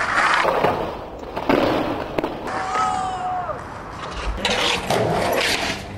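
Skateboard wheels rolling, with several sharp clacks of the board hitting and landing, about half a second, a second and a half and two seconds in, and more rolling and clicks near the end.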